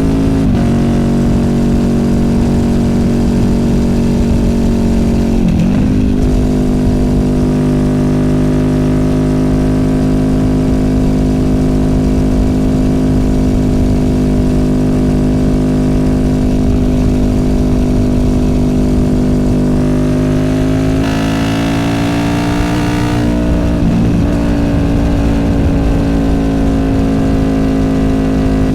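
Honda VFR800F's V4 VTEC engine through an SC Project Conic exhaust, running at a steady cruise. The engine note dips briefly and recovers about five seconds in. Around twenty seconds in the revs rise slightly with a harsher edge, then drop back about three seconds later.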